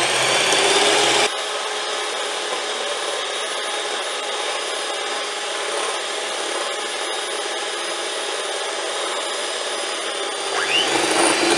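Electric hand mixer running steadily, its beaters whipping egg whites and sugar in a glass bowl toward soft peaks, with a rubbing, scraping whir. The sound drops a little about a second in and rises again near the end.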